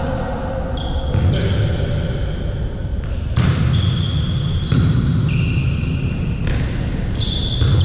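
Indoor volleyball play in a sports hall: sharp ball hits and high-pitched squeaks over the echoing background rumble of the hall.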